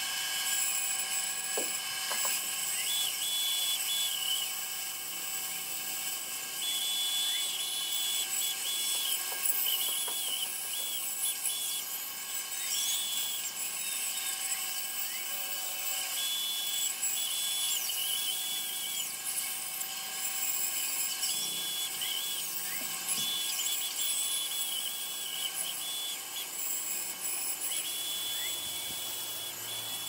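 Bench-top band saw running and cutting through a thick glued-up block of cedar and white pine, a steady high-pitched whir with a higher note that comes and goes as the blade works the curved cut.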